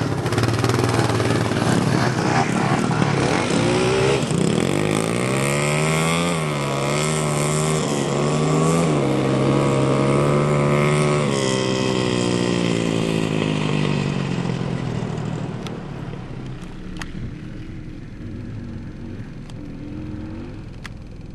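Quad ATV engine revving hard as it pulls away, its pitch climbing with a couple of brief dips, then fading steadily into the distance.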